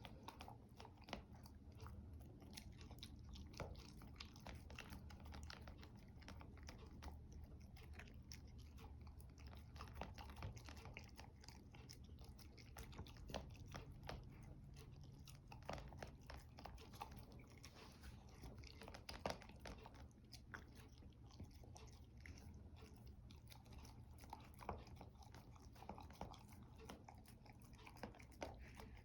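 A dog chewing and crunching its food, with faint, irregular crunches all the way through.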